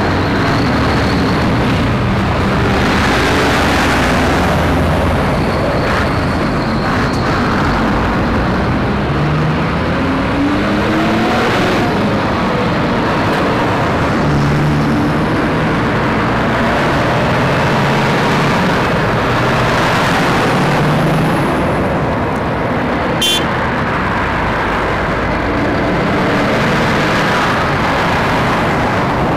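Heavy articulated lorries' diesel engines running as they pull round a roundabout one after another, the engine notes rising and falling over a steady traffic and tyre noise. A brief sharp click or clank sounds about 23 seconds in.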